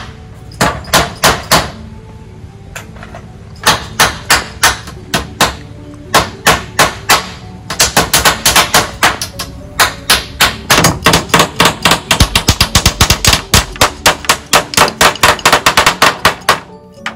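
Two hammers nailing split bamboo slats onto a wooden gate frame: runs of sharp, quick strikes with short pauses between, becoming a dense overlapping rattle of blows in the second half that stops shortly before the end.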